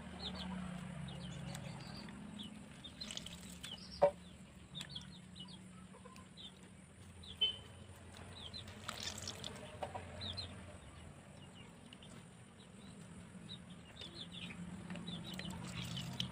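Faint chickens clucking and small birds chirping in the background, with a couple of soft sharp clicks from hands handling mushrooms in a steel bowl of water.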